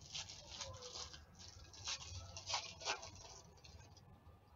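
Foil trading-card packs crinkling and cards rustling in hands: a run of crisp crackles through the first three seconds, then fainter handling.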